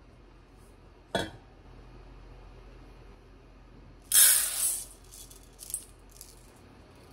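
Uncooked rice grains poured from a small measuring cup into a stainless steel bowl: a loud rattling rush lasting under a second, followed by a few light ticks of the last grains. A single sharp clink comes about a second in.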